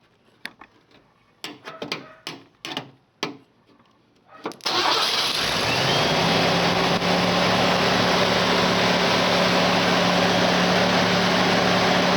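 A few scattered light clicks, then about four and a half seconds in the 1989 Ford F-150's engine fires as the two starter solenoid terminals are shorted together, and it settles at once into a steady idle. Starting this way bypasses the key circuit and points to the original starter solenoid as the reason the truck won't start on the key, which the owner suspects.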